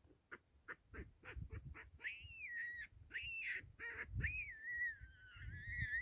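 Animal calls: a run of short, sharp calls about three a second, then from about two seconds in a series of high, wavering squeals, the last one drawn out for nearly two seconds.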